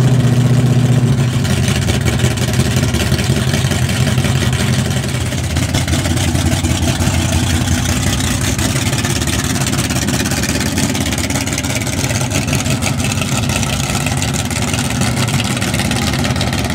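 1964 Ford Galaxie 500's FE big-block V8 idling loudly, a steady rumble of exhaust pulses, loudest in the first second, as the car rolls slowly by.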